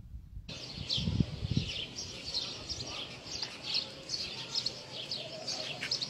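Small birds chirping, many short high chirps that slide downward, several a second, starting suddenly about half a second in. Two low thumps come a little after a second in.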